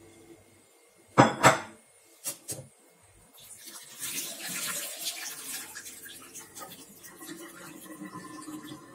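Glass lid clinking against a glass bowl: two sharp clinks a little over a second in, then two lighter ones. From about three and a half seconds on, water is poured out of the bowl into a stainless steel sink, splashing and then running more softly, draining the water the tomatoes were blanched in.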